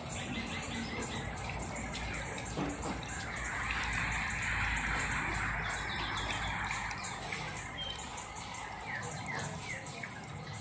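Steady rain falling with water dripping and trickling, swelling a little louder for a couple of seconds about four seconds in. A bird chirps a few times in the second half.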